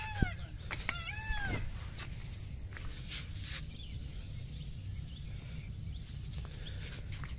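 An animal's short calls, each rising then falling in pitch, two of them in the first second and a half, with a sharp click just after the start. A steady low rumble runs underneath.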